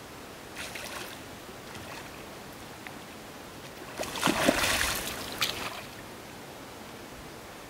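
A hooked fish thrashing and splashing at the water surface: a short splash about half a second in, then a harder bout of splashing for about two seconds past the middle. A steady hiss runs beneath.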